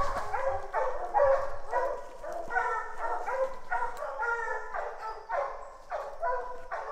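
Several bear hounds baying steadily at a tree, their bawls overlapping in a quick run of about two or three calls a second. This is the tree bark that tells the hunters the bear is treed.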